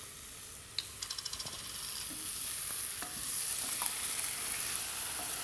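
Tomato-based curry sauce poured from a jar into a hot pan of pork and spinach, sizzling as it hits the pan while a wooden spoon stirs. A short run of light clicks about a second in, then the sizzle builds from about two seconds in and holds steady.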